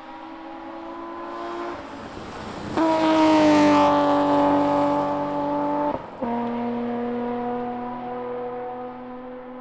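Rally car passing at full throttle on a gravel stage. The engine note rises in level as the car approaches, with a rush of gravel and tyre noise as it goes by. About six seconds in the note cuts briefly and comes back lower, an upshift, and it then fades as the car drives away.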